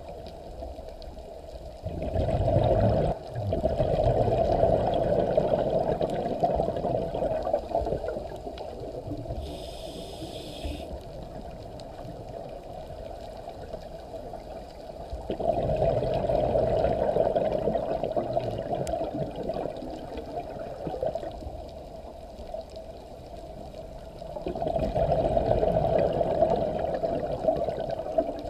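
Scuba diver breathing through a regulator underwater: three long exhalations bubbling out, about two seconds in, just past the middle and near the end, with a short hiss of an inhalation in between.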